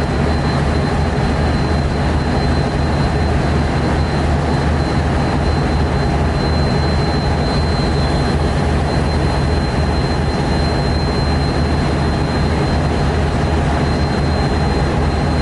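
DF11G diesel locomotive's engine idling at a standstill: a loud, steady low hum with a thin, steady high whine over it.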